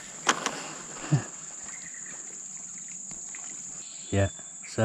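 Insects droning in a steady high-pitched hum, with a sharp click about a third of a second in.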